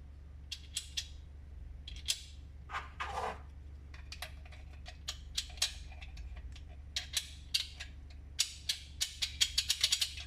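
Small hard clicks and taps of 3D-printed PLA parts and magnets being handled and put together, scattered at first, then a quick run of clicks near the end, over quiet background music.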